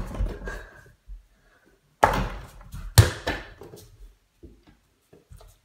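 Nerf mini basketball shots hitting an over-the-door mini hoop: sharp thuds against the backboard and door, one at the start and two about a second apart near the two- and three-second marks, each with a brief rattle, then a few light knocks.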